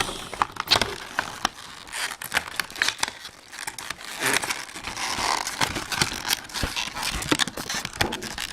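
Plastic and cardboard product packaging being handled and pulled apart, crinkling with many sharp clicks and snaps.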